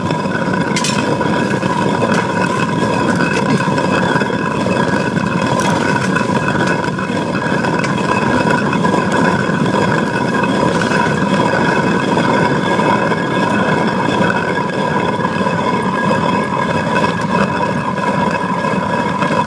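Hand-turned stone quern grinding grain into flour: the upper millstone spun fast on the lower stone, making a steady, continuous grinding rumble.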